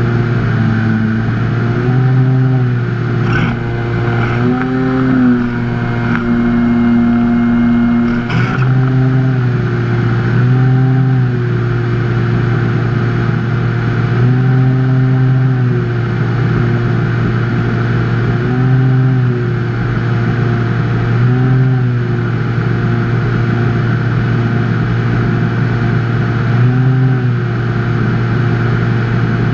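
Electric motor and propeller of a Skyhunter FPV plane, heard from the onboard camera, running steadily over a rush of wind. Its pitch rises and falls briefly every few seconds as the throttle is nudged, with two short clicks in the first third.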